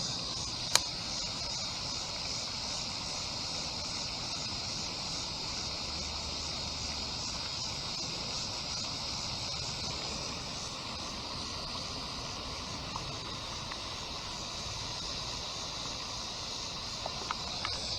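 Insects droning steadily at a high pitch, with one sharp click less than a second in.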